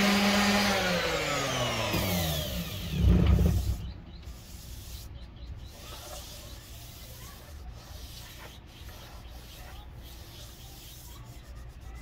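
Electric wood sander switched off at the end of sanding, its motor whine falling steadily in pitch as it spins down over about three seconds, ending in a brief rough rub against the wood. After that only faint knocks from handling.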